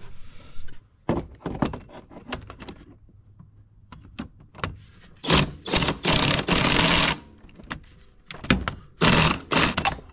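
Cordless impact wrench set to reverse, hammering to loosen the centre bolt of a snowmobile's drive clutch: several loud bursts in the second half, the longest lasting about a second, after a run of small metal clicks and knocks.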